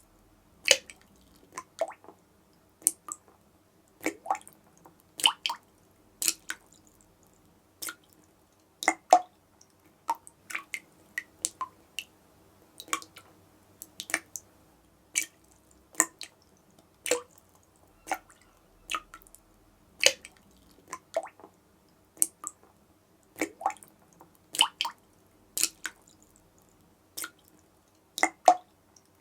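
Water dripping from a tap: single drops land with short plinks at an uneven pace, about one or two a second, some falling in quick pairs.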